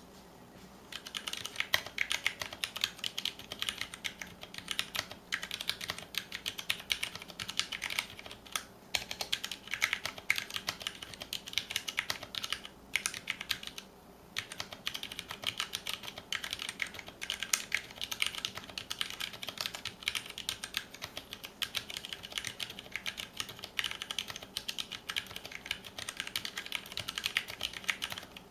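Continuous fast typing on a mechanical keyboard with Cherry MX Brown tactile switches, a stainless steel plate, thin ABS keycaps and an aluminium case: a dense stream of sharp key clacks, broken by short pauses a few times.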